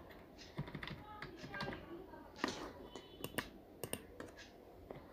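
Keys on a computer keyboard being typed: irregular single keystrokes and short runs with pauses between them.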